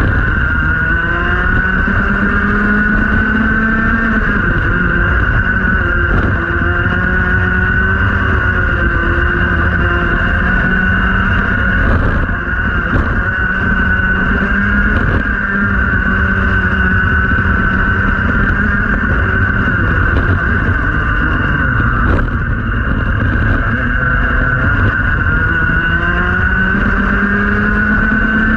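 Rotax Max 125cc two-stroke kart engine at racing speed, heard from on board, its pitch climbing along the straights and dropping as it comes off the throttle for corners, several times over.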